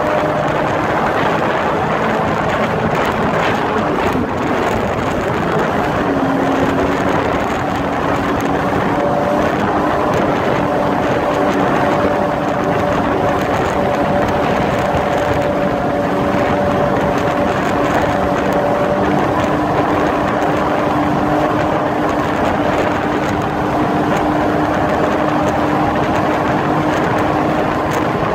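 Jet ski engine running steadily under way, a whining engine tone over a constant rushing noise; the pitch steps up slightly about six seconds in and then holds.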